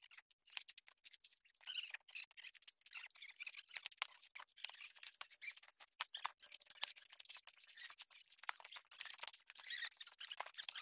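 Coconuts being husked on a husking spike: an irregular, continuous crackling and ripping as the dry, fibrous husks are pried and torn away from the nuts.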